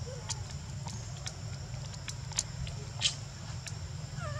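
Outdoor ambience under a steady low hum and a faint steady high drone, with scattered small clicks and two brief rustles of leaf litter; near the end a short wavering squeak.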